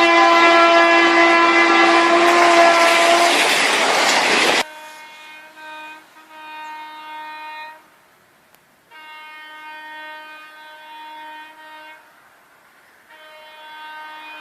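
A horn sounding one loud, long blast that cuts off suddenly about four and a half seconds in, followed by several quieter, shorter blasts on the same steady pitch.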